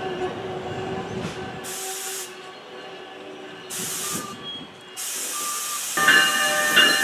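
NJ Transit passenger coaches rolling along the station platform, a low rumble of wheels on rail with short bursts of air hissing about two and four seconds in and a longer hiss from about five seconds. Near the end, louder steady ringing tones start up.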